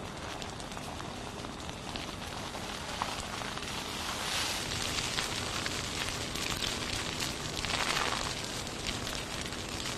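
Wildfire burning through trees and brush: dense crackling and popping of burning vegetation over a steady rush of flame. It swells louder about four seconds in and again about eight seconds in.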